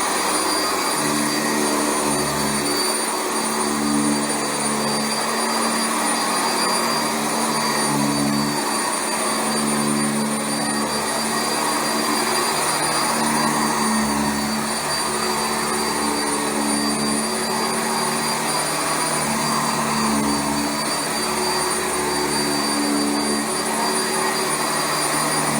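Sanitaire SC679J commercial upright vacuum cleaner running over carpet: steady motor noise with a high whine, and a lower hum that swells and fades every couple of seconds.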